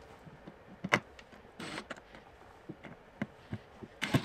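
Scattered light clicks and scrapes of a metal drawer pull and its screws being handled and fitted against a plywood drawer front, with a sharper click about a second in and a quick run of clicks near the end.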